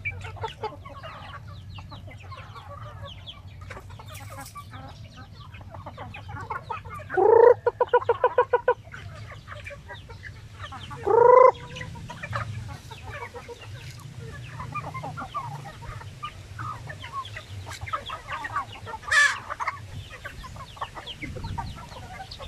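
A flock of free-range chickens, hens and roosters, clucking and calling as they feed. About seven seconds in one bird gives a loud call that breaks into a quick run of pulses. A short, loud, rising call follows about four seconds later, and another loud call comes near the end.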